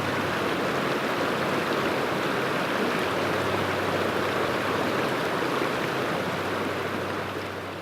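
A river rushing over rocks in a steady wash of flowing water, fading out near the end.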